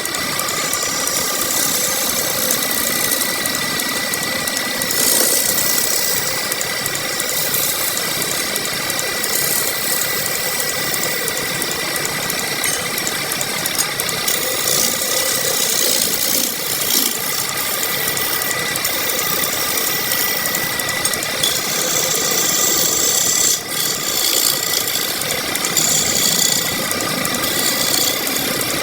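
Electric power tool running continuously on wood, a steady motor whine under rough scraping and rattling that grows and eases as the tool cuts.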